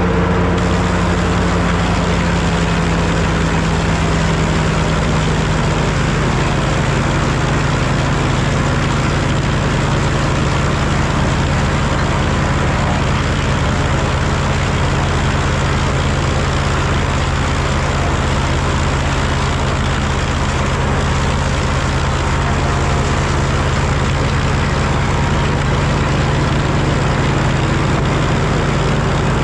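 Four-cylinder engine of a Super W-6 tractor running steadily under belt load, driving an 1889–1893 S.A. Woods wood planer whose machinery runs along with it. The engine note drops slightly in the first few seconds, then holds.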